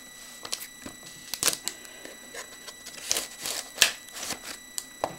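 A sealed box of trading cards being opened by hand: irregular crinkling, tearing and clicking of the shrink wrap and cardboard. Under it runs a steady high-pitched whine from a computer fan.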